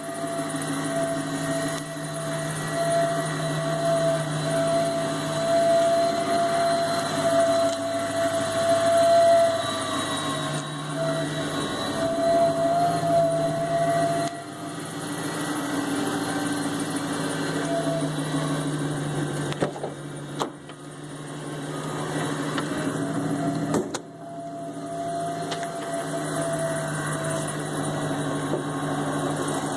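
Jaguar XKR's supercharged V8 running with a steady, strange whine over the engine note; the whine and a lower hum swell and fade slowly. Two sharp clicks come about twenty and twenty-four seconds in, each followed by a brief dip in the sound.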